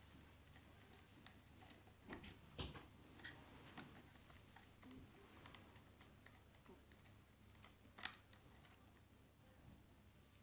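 Faint, irregular small metallic clicks and taps of a lock pick working the pins inside a Keso 2000 lock cylinder, with one sharper click about eight seconds in.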